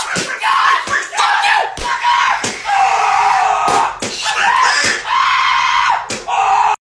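A person screaming in long high-pitched shrieks, broken by several sharp slaps or bangs; the sound cuts off suddenly near the end.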